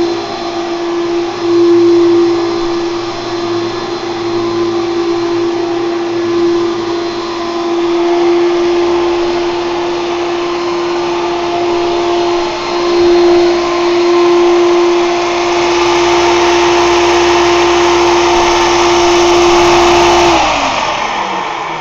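1999 Hoover Turbopower 2 vacuum cleaner running with a steady motor tone. About twenty seconds in, the motor winds down and its pitch falls.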